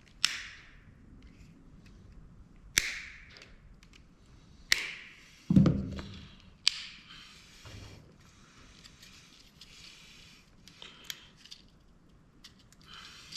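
Hard plastic and metal parts of a dome camera being handled and set down during disassembly. About five sharp knocks come in the first seven seconds, one of them a deeper thud, followed by lighter clicks and handling.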